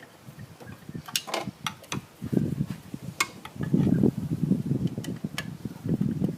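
Sharp metal clicks and clinks of hand tools and Torx screws on a car's ABS module, scattered and irregular, with low rumbling handling noise swelling from about two seconds in.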